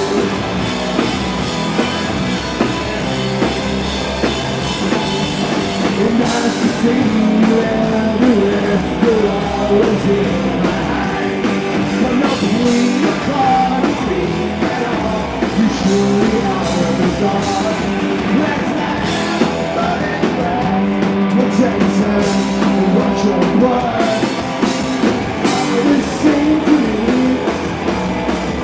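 A punk rock band playing live: electric guitars, bass guitar and a drum kit, with a man singing lead into the microphone.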